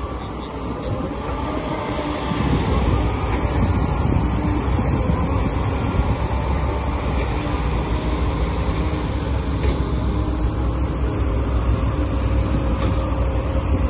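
A machine running steadily: a constant low rumble with a faint steady whine over it.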